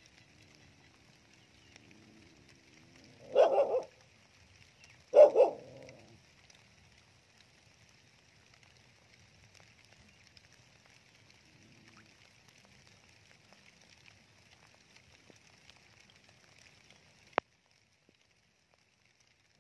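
A dog barks in two short bursts, about two seconds apart, over a faint steady high hiss. The hiss cuts off suddenly with a click near the end.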